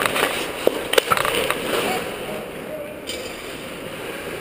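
Ice hockey play in an arena: skate blades scraping the ice under a rink-wide hiss, with a few sharp clacks of sticks and puck in the first second and a half and players' voices calling. The sound settles somewhat quieter after about two seconds.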